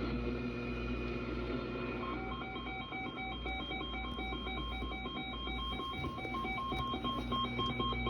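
Emergency Alert System alert tone received over FM radio: rapid beeping that alternates between two pitches, starting about two seconds in, over a steady hum and radio hiss.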